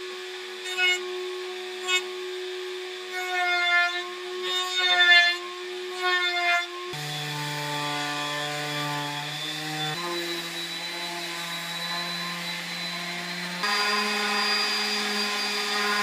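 Makita M3600 plunge router running in a router table and cutting wood, its steady whine dipping and wavering under load. The pitch jumps abruptly to a new steady tone three times, as between separate cutting passes.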